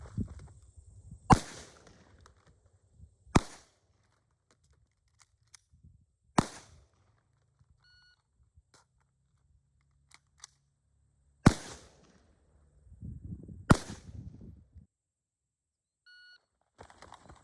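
Five single gunshots from a carbine and pistol, fired at uneven intervals of two to five seconds, each a sharp crack with a short echo after it. Two faint short beeps fall between them.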